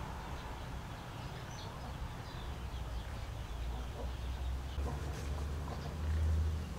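Outdoor rural ambience: small birds chirping here and there over a steady low rumble, which grows louder about six seconds in and then cuts off suddenly.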